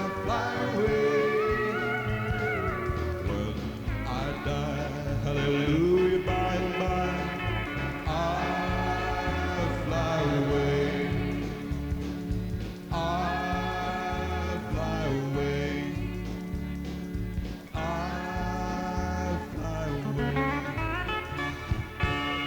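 Country band playing an instrumental break, with drums and bass keeping a steady beat under lead lines that slide between held notes; the lineup includes pedal steel and electric guitars.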